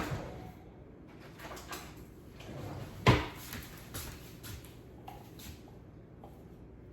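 A few wooden knocks and clunks as wood pieces are handled and set down; the loudest comes about three seconds in, with smaller taps between.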